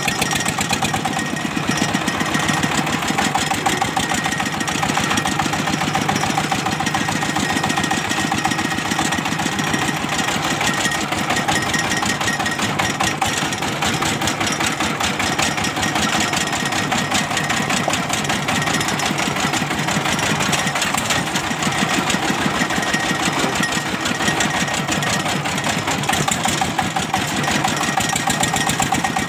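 Single-cylinder diesel engine of a công nông farm cart running steadily as it drives along, a fast, even knocking chug heard up close from the driver's seat right behind the open engine.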